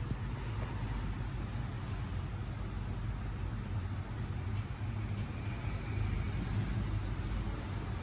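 A steady low rumble with an even hiss above it, without distinct knocks, clicks or voices.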